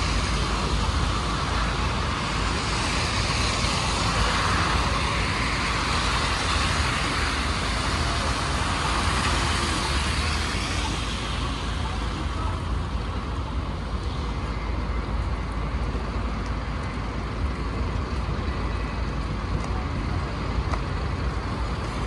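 Street traffic: vehicles passing in a continuous low rumble with tyre hiss, the hiss easing off about halfway through.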